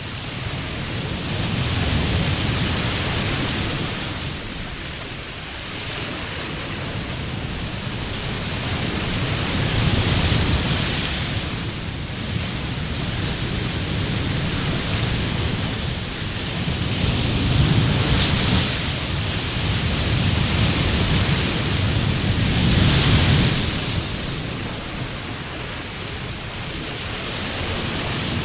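Ocean surf on a sandy beach: a steady wash of breaking waves that swells and eases, with several louder surges as waves break and run up.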